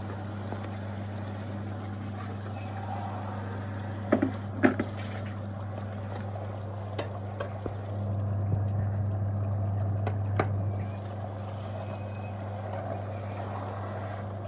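Chicken curry simmering in a steel pot over a gas burner, a steady low hum and hiss, with a few sharp clinks of a metal ladle against the pot, the loudest two about four seconds in and lighter ones later.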